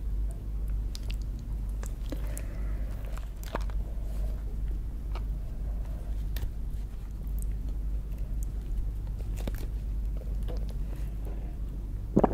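Close-up mouth sounds of a person eating lobster: chewing and biting with scattered small crunches and wet clicks, over a steady low hum. A sharper knock comes near the end.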